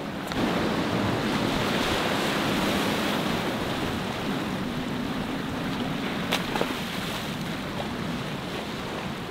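Surf washing and breaking against jetty rocks: a steady rush of sea water, a little fuller in the first few seconds. Two faint ticks sound about six and a half seconds in.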